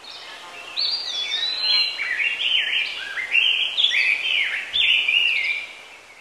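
Several songbirds chirping and singing together in short, overlapping notes that slide up and down, over a faint steady hiss of forest ambience, fading out near the end.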